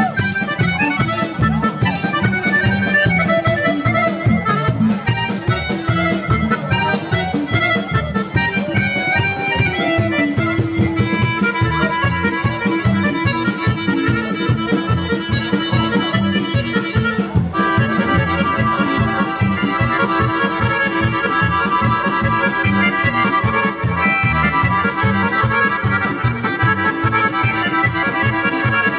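A live band plays accordion-led traditional folk dance music with a steady, driving beat.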